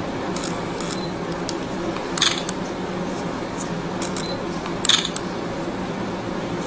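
Sharp metallic clicks of suturing instruments (needle holder and scissors) over a steady background hiss, the two loudest about two and five seconds in, with a few fainter ticks between.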